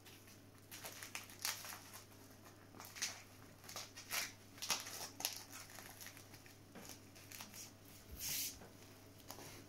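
Canvas restraint sack and its webbing neck collar rustling and crinkling in irregular short bursts as hands adjust and fasten the collar.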